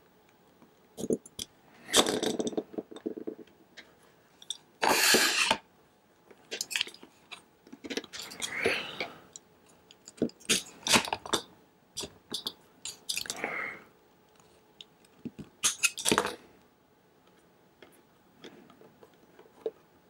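Utility knife blade cutting and scraping through the copper wire ends that stick out of a pass-through RJ45 connector, in a string of short bursts with pauses between, along with small handling clicks. The wires are hard to cut even with a brand-new blade.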